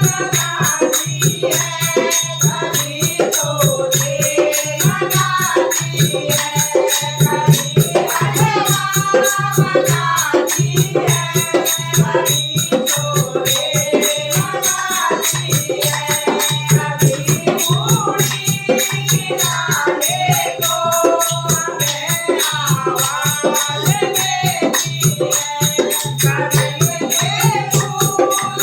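Hindi devotional bhajan: group singing over a fast, steady beat of hand percussion.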